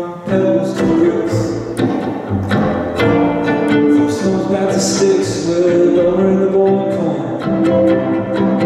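Live instrumental passage of the song, led by bowed strings holding sustained notes over a busy pattern of short, sharp plucked or struck notes.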